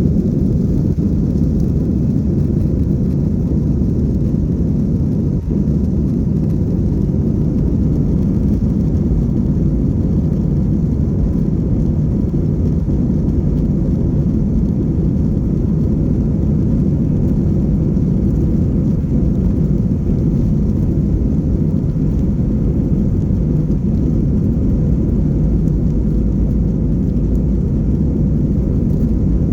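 Passenger airliner taking off: a loud, steady low rumble of engines at takeoff power that does not rise or fall.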